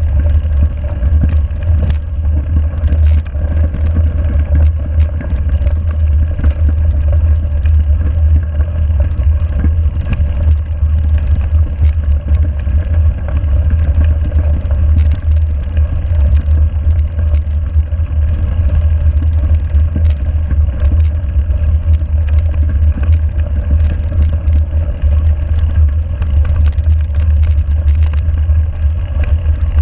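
Mountain bike riding fast on a gravel and snow forest road, heard from a bike-mounted GoPro: a steady, loud low rumble of wind and tyres with many small clicks and rattles from the gravel and the bike.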